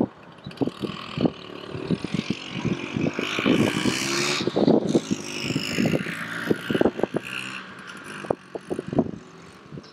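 Vespa 125 ET3 scooter's two-stroke single-cylinder engine running as the scooter rides along, with many short irregular thumps mixed in.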